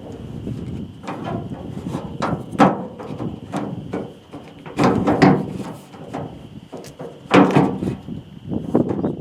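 Irregular clunks, knocks and rattles from hands and tools working on a pickup's tailgate latch mechanism, about five louder knocks among them.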